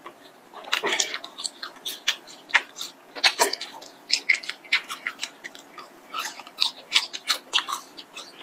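Mouth sounds of eating a long strip of latiao (spicy gluten snack): wet smacking and chewing as the strip is drawn into the mouth, in quick irregular clicks.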